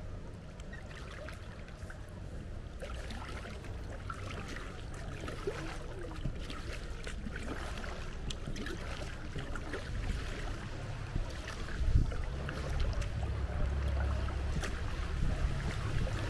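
Kayak paddle strokes on calm canal water: light splashes and drips from the blades, with a low rumble that grows louder in the second half.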